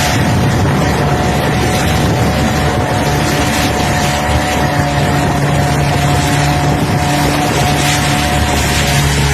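Yamaha 15 hp outboard motor running steadily after its repair.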